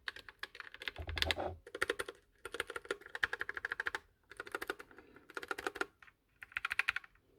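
Typing on a Redragon K621 low-profile mechanical keyboard with red switches: rapid runs of key clacks in several bursts, with short pauses between them.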